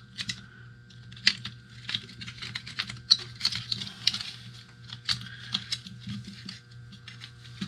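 Irregular small clicks, taps and rustling of plastic goggle parts and thin cables being handled and fitted together, over a faint steady electrical hum.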